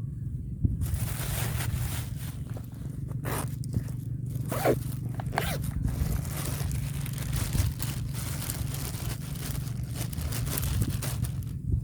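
Continuous close scraping and rustling that starts suddenly about a second in and stops near the end, over a steady low hum.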